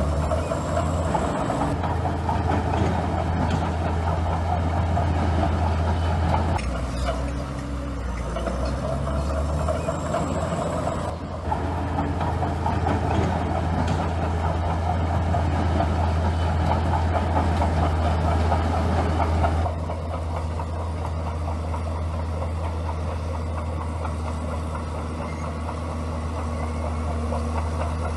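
Komatsu crawler bulldozer's diesel engine running steadily under load with a dense clatter, dipping briefly about eleven seconds in and settling a little quieter about twenty seconds in.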